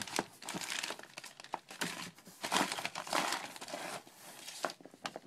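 Plastic packaging crinkling and rustling in bursts as it is handled, with a few sharp clicks.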